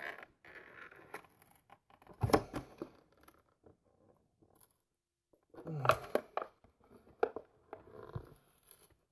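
Plastic and cardboard tackle packaging being handled and opened: scattered rustling and clicking, with louder bursts about two seconds in and again about six seconds in and a quiet stretch between.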